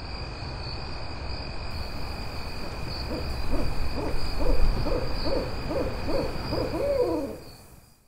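Owl hooting: a quick run of about ten hoots, the last one drawn out, over a steady low rumble and a faint high steady whine. It all fades out near the end.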